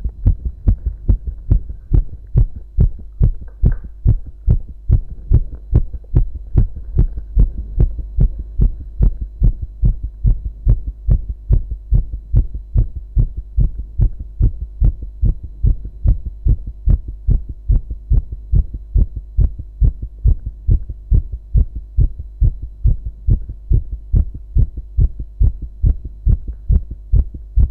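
A man's strong heartbeat, steady and regular, each beat a short low thud. A faint steady hum lies under it.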